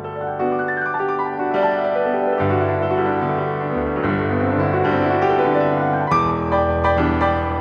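Background music: a gentle piano piece playing sustained chords and melody notes.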